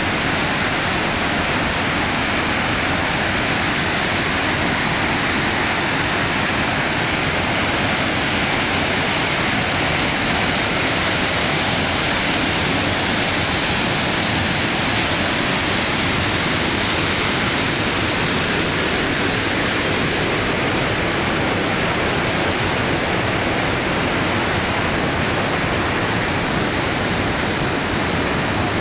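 Rushing river water pouring through a narrow marble gorge: a steady, loud wash of falling white water.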